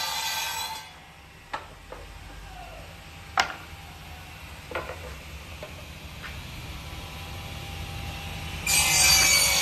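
Benchtop electric wood planer cutting an old board: a loud rasping whine that stops about a second in. A quieter stretch follows with a low hum and a few light knocks, one of them sharp. Near the end the planer bites into wood again.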